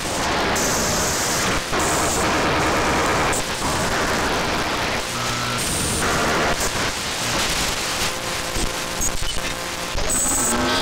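Shortwave receiver audio from an RTL-SDR with HF upconverter fed by an MLA-30+ active loop antenna, tuned across the 6 to 7 MHz bands. It is mostly hiss and static, changing in steps as the tuning moves, with brief tones and signal fragments coming and going.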